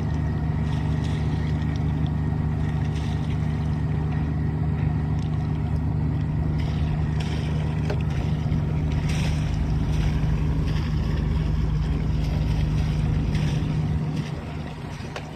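Motorboat engine running steadily with a low drone, dropping in level near the end as the boat slows.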